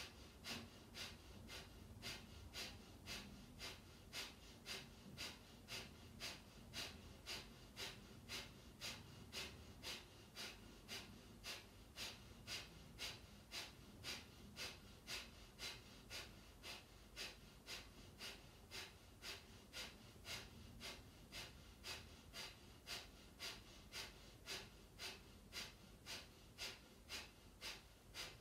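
Kapalabhati breathing: faint, sharp exhalations forced out through the nose by the belly muscles, in a steady rhythm of about three every two seconds.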